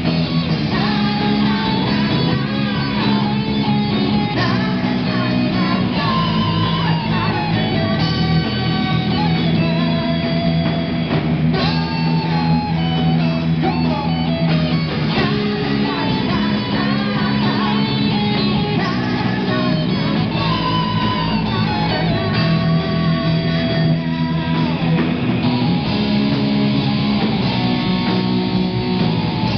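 Live rock band playing loud, with distorted electric guitars and drums and a singer on the microphone.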